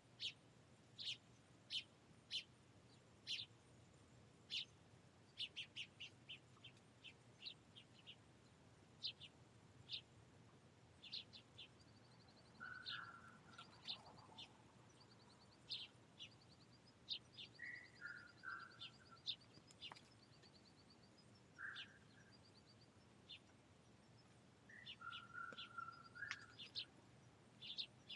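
Finches chirping: short, sharp, high calls about every second, with a couple of rapid trilled runs and a few lower calls through the middle.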